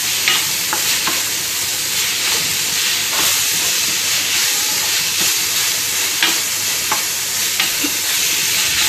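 Onions, tomatoes and spices sizzling in hot oil in a stainless steel frying pan as they are sautéed, stirred with a spatula that scrapes lightly against the pan.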